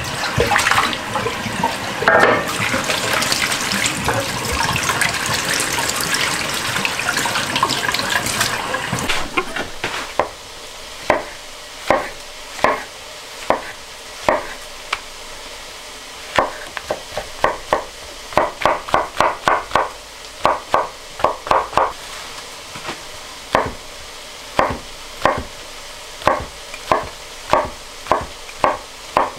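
Tap water running into a stainless steel sink while mushrooms are rinsed by hand in a container; it stops about nine seconds in. Then a chef's knife slices and dices brown button mushrooms (champignons de Paris) on a wooden cutting board, sharp knocks on the board, some single and some in quick runs.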